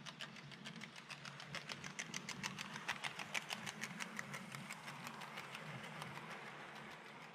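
Model diesel locomotive and its four-axle coaches running past on the layout's track: a low motor hum with rapid, even clicking of the wheels over the rail joints, growing louder toward the middle and fading toward the end.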